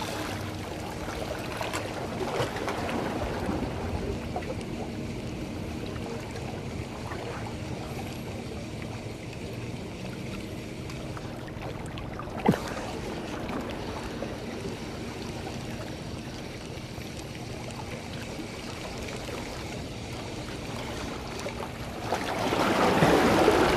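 Sea water lapping against breakwater rocks with wind on the microphone, while a spinning reel is cranked to work a slow-jigging lure. A single sharp click about halfway through, and the noise swells louder near the end.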